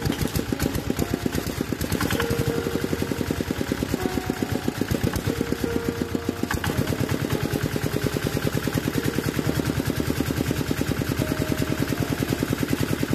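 R180 single-cylinder diesel engine firing up and running with a rapid, even beat after being hand-cranked. Its note changes about six and a half seconds in.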